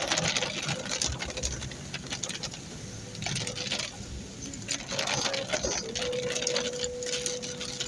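Heavy rain pattering on a car, a dense crackle of drops that swells and eases in uneven surges, with a faint steady hum over the last couple of seconds.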